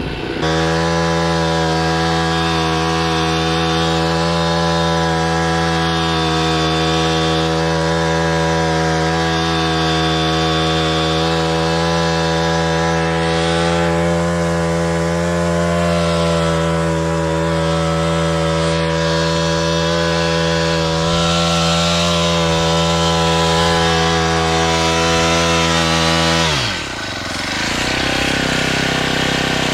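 Small engine of a portable log-pulling winch running steadily at a high, even speed while it drags a log, then slowing to idle about 27 seconds in.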